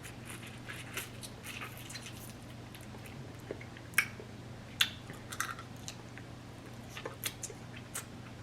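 Close-up chewing and biting on blue crab, with wet mouth sounds and sharp clicks and cracks scattered throughout. The two loudest clicks come about four and five seconds in.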